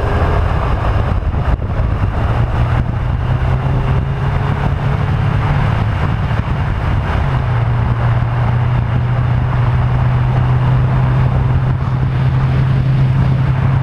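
Motorcycle engine running at a steady cruise, its low drone holding with small shifts in pitch, under constant wind rush on the microphone.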